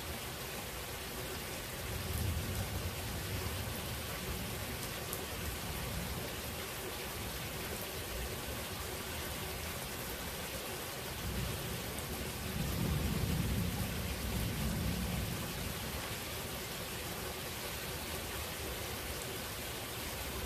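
Steady rain falling, with two low rolls of thunder: a shorter one about two seconds in and a longer, louder one near the middle.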